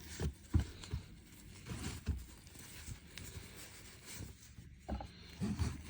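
Soft rustling and a few light knocks as a small rotary tattoo pen is handled and taken out of its little carrying bag.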